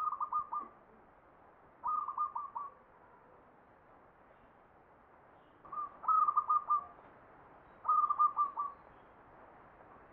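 Zebra dove (perkutut) cooing in the four-part 'ngepat' song style: four phrases of quick, stuttering notes, each about a second long and spaced about two to four seconds apart.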